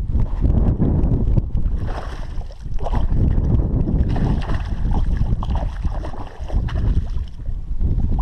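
Heavy wind rumble on the microphone, with a hooked bass splashing and thrashing at the water's surface in short bursts during the fight.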